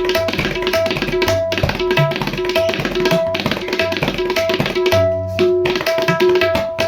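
Tabla played in a fast, continuous stream of strokes. The right-hand drum rings at a steady tuned pitch, and the left-hand bass drum adds deep booming strokes.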